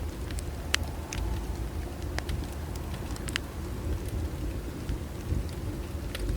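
Wood fire crackling: irregular sharp pops and snaps of burning wood over a steady low rumble.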